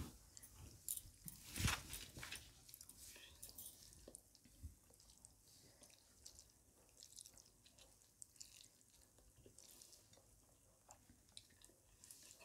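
Faint chewing and soft, wet squishing and small clicks of rice and curry being mixed and eaten by hand, a little louder in the first two seconds.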